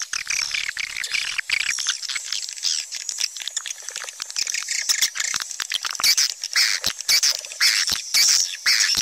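A dense chorus of swiftlets twittering and chirping, high-pitched and crowded with many sharp clicks, which grows busier and louder about halfway through.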